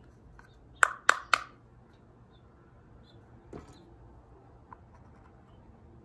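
A container knocked three times in quick succession, about a quarter second apart, to tap the last ant workers out into a new formicarium. A single softer knock follows a couple of seconds later.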